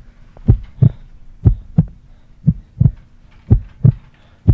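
Heartbeat sound effect: deep lub-dub thumps in pairs, about one pair a second, steady and even.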